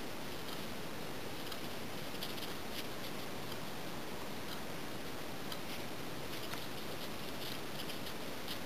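Steady hiss of room tone with a few faint, irregularly spaced clicks.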